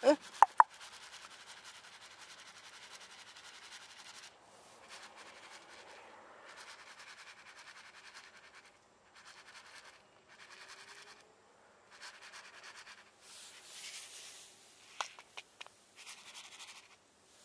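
Scraping and rustling handling noise, like something rubbing against the microphone, with a few sharp loud clicks just after the start and a few more near the end.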